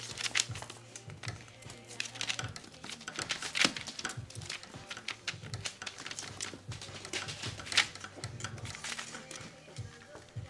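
Background music with a steady low tone, over scattered sharp clicks and crinkling rustles.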